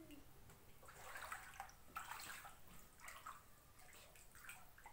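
Faint, irregular splashing of shallow floodwater on a tiled floor as feet wade through it.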